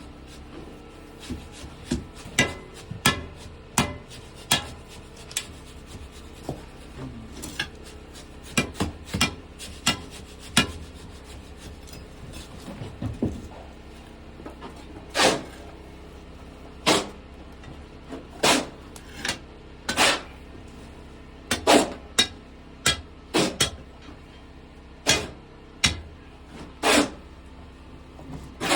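Irregular knocks and clanks of steel rebar being handled and laid out: short sharp knocks in the first half, then fewer, louder and longer clanks about a second or two apart.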